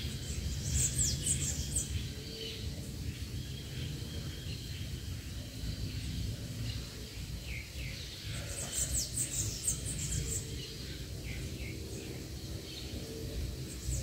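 Small birds chirping in quick runs of very high notes, a cluster about half a second in and another at about eight and a half seconds, with scattered chirps between, over a steady low rumble.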